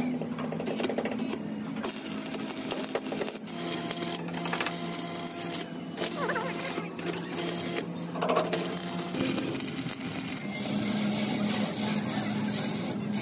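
Stick (arc) welding on the steel plate of a crane boom: the electrode's arc crackles and sizzles steadily over a low, steady hum.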